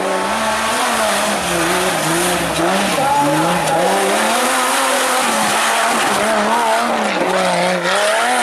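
Off-road 4x4 engine revving up and down repeatedly under load, its pitch rising and falling every second or so.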